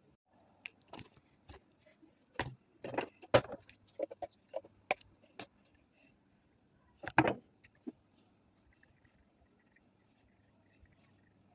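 Metal Zippo lighter case and chimney handled during cleaning: irregular small metallic clicks, taps and knocks for several seconds, a few with a short ring, then only faint scratchy ticks near the end.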